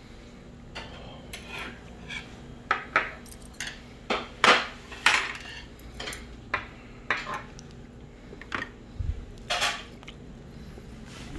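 Tableware clinking: metal chopsticks knocking against dishes and bowls on a meal tray, in a string of irregular short clinks and clatters. A low thump comes about nine seconds in.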